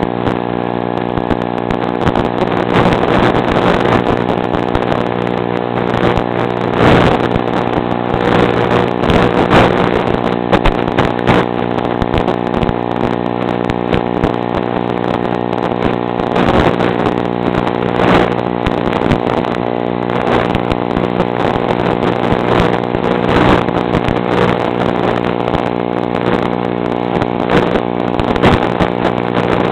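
A motor or engine running at a steady pitch, with irregular brief rushes of noise over it.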